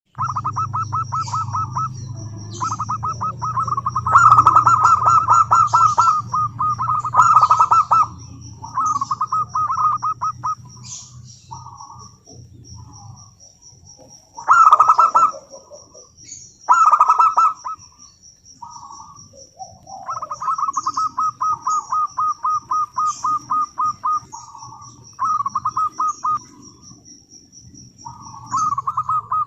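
Zebra doves cooing in their rapid, stuttering, rolling song: bursts of quick repeated notes lasting one to three seconds, some loud and some softer, with short gaps between them. A steady, high-pitched pulsing trill runs underneath most of the time.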